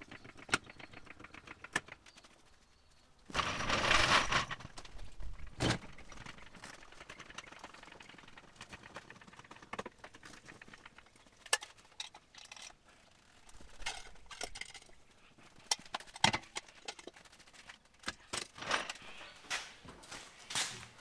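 Scattered clicks, taps and knocks of small hard objects being handled. A loud rushing burst lasts about a second, a few seconds in, and several sharper single knocks stand out.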